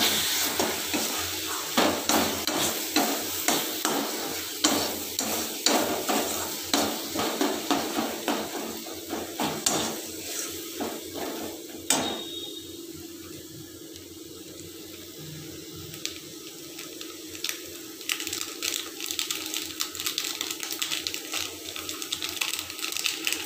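Steel spatula scraping and knocking against a steel kadai as a thick masala paste is stirred and fried, about two strokes a second. The stirring stops about twelve seconds in, leaving a quieter stretch, and lighter scrapes and clicks come back near the end.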